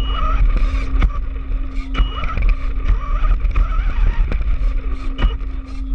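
Electric RC car driving over rough ground, heard up close: a steady motor whine over a heavy low rumble, with several sharp knocks from bumps and jolts.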